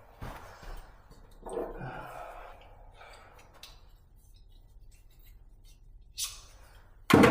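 Light clicks and clinks of hand tools being handled during bicycle brake work, with a loud sudden clatter of tools near the end.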